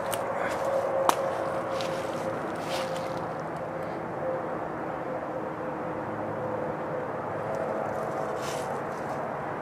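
Footsteps crunching through dry leaf litter and brush, a few in the first seconds and again near the end, with one sharp click about a second in, over a steady low hum.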